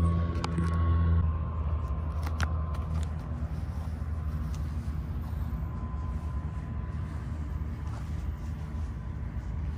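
Background music ending about a second in, then steady outdoor background noise with a low rumble and a couple of light clicks in the first few seconds.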